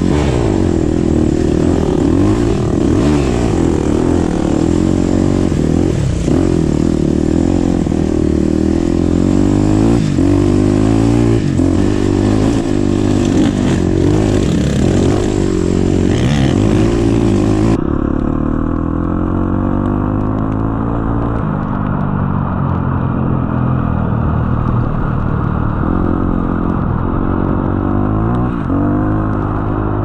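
Dirt bike engine revving up and down repeatedly as it is ridden over rough trail, heard close up from the bike being ridden. About eighteen seconds in, the sound abruptly turns duller, losing its top end.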